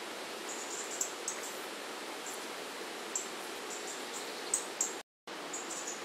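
Outdoor ambience: a steady hiss with short, high chirps scattered through it every second or so. The sound cuts out completely for a moment near the end.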